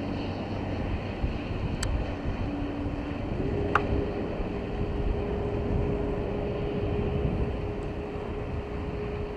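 Wind and water noise on open water, with a steady low hum that sets in about three seconds in and holds, and a couple of faint ticks.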